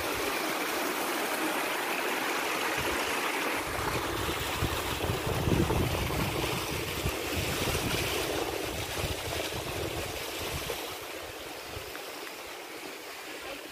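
Clear mountain river rushing steadily, growing fainter near the end.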